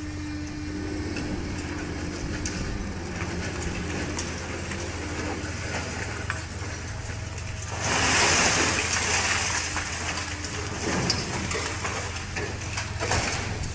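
A heavy machine's engine running with a steady low drone. About eight seconds in, a loud rushing noise lasts about a second and a half, and a shorter one comes near the end.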